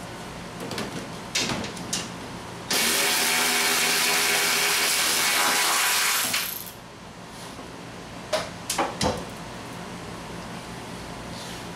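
A few clicks, then a cordless power tool runs steadily for about four seconds, spinning a strut-mount nut off at the top of the strut tower. A couple of seconds later come three or four sharp metal knocks.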